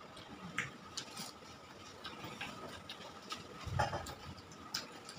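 Close-miked eating sounds of a person eating rice mixed with biulir dal by hand: scattered wet mouth clicks and lip smacks while chewing, with a louder low mouth sound about four seconds in as a handful goes into the mouth.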